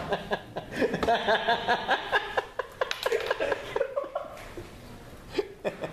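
Two men laughing hard in quick bursts that die down about halfway through, with a short chuckle near the end.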